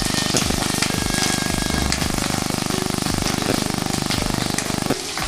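Green chillies and garlic frying in hot oil in a kadai, sizzling as a steel ladle stirs them. Under it runs a steady low mechanical rattle that stops about five seconds in.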